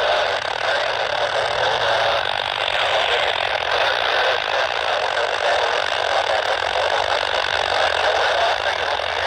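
Open railroad radio channel heard through a scanner: a steady rushing hiss with a low hum and no voice.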